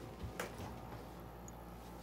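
Panasonic F-Y101BW dehumidifier running with a steady low hum, the resonance noise its owner complains of. A single knock about half a second in.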